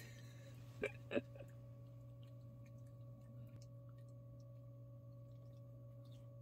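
Steady low electrical hum in a quiet room, with two brief faint sounds about a second in.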